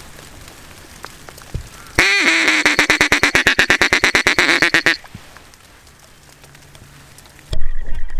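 Hunter's duck call blown to lure approaching ducks: a falling opening note runs straight into a fast, even string of short quacking notes, about ten a second, lasting around three seconds. Near the end a loud low rumble comes in.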